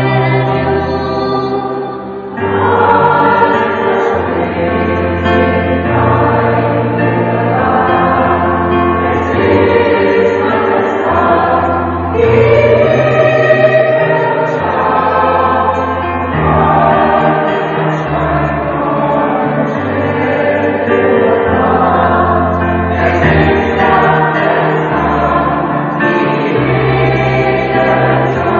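Choir singing a song in several parts over sustained low notes that change every few seconds, with a brief drop in level about two seconds in.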